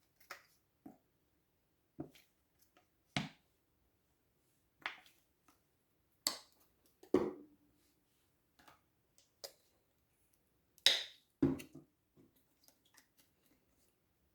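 Slime being squeezed and poked by hand, making irregular sharp clicks and wet pops as trapped air bursts, about a dozen of them, the loudest about six and eleven seconds in.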